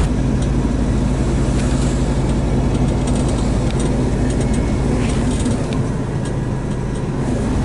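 Bullnose Ford Bronco driving, heard from inside the cab: the engine and drivetrain run with a steady low hum.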